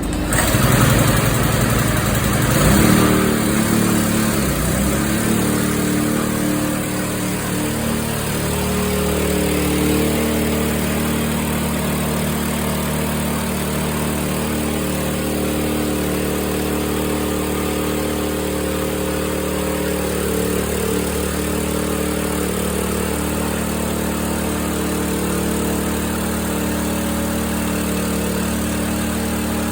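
Rice milling machine running under its engine, uneven and louder for the first few seconds, then settling into a steady drone. The sound is offered as a check on whether the newly bought machine is in sound working order.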